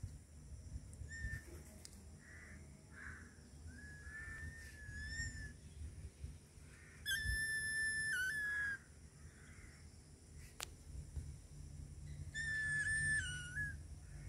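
Ginger-and-white kitten mewing repeatedly: high, drawn-out mews, the loudest and longest about seven seconds in, another near the end.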